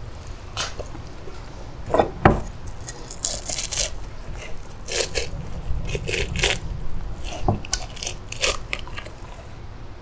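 A knife scraping and cutting a freshly caught traíra while cleaning it: irregular short scraping strokes with a few sharp knocks.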